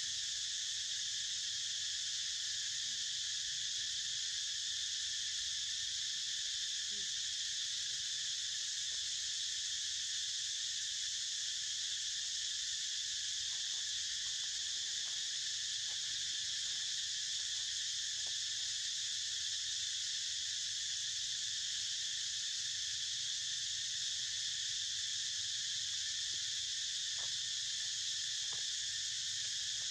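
Steady, shrill insect chorus, continuous and unchanging in level.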